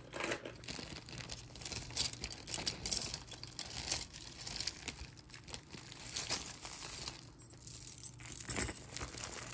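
Hands rummaging through a pile of costume jewelry: irregular rustling and crinkling with many small clicks as pieces are moved and one is picked up.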